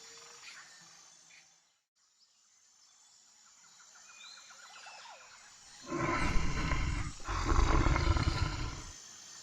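Faint jungle ambience of birds and insects, then a tiger roaring twice in a row in the second half, each roar loud and about a second and a half long: a sound effect for the story.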